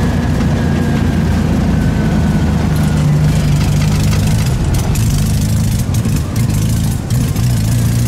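Air-cooled VW flat-four engine, which the driver thinks is a 1776, heard from inside the Beetle's cabin while driving. The engine note rises a little about three seconds in, and the loudness dips briefly twice near the end.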